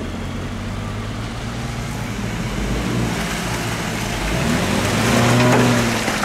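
Off-road vehicle's engine pulling through rough terrain at steady revs, then revving up and getting louder about five seconds in. The hiss of the tyres on the ground grows from about halfway.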